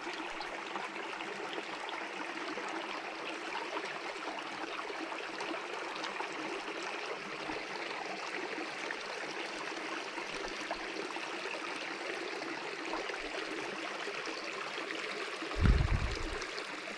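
Small mountain creek running over rocks and gravel: a steady, even rush of water. Near the end comes one short, low thud.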